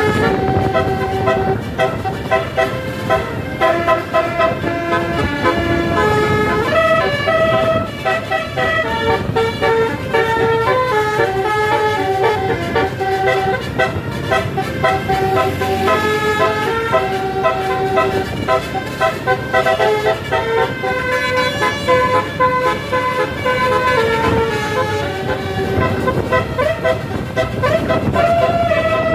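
A Basuri multi-note telolet bus horn playing a tune of short stepped notes one after another without pause, over a low vehicle rumble.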